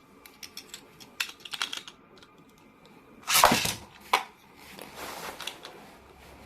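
Hard plastic toy parts and packaging being handled: a run of light clicks and taps, then a loud short scraping rush a little over three seconds in, a sharp click, and softer rustling.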